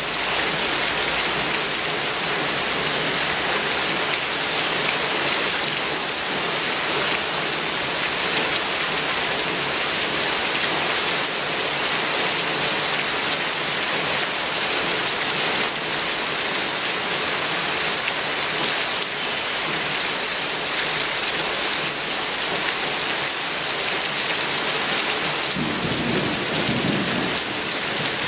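Heavy rain pouring down steadily on trees and foliage, a dense even hiss. A low rumble joins in near the end.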